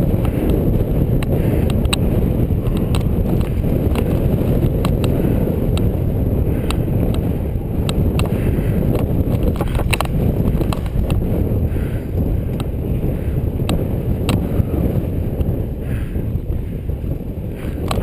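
Wind buffeting a helmet-mounted GoPro's microphone as a mountain bike rolls down a dirt trail: a steady, loud rumble, with scattered sharp clicks and knocks from the bike jolting over bumps.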